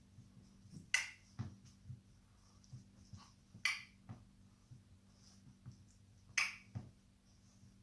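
Three sharp clicks about two and a half seconds apart, each followed a moment later by a soft low knock.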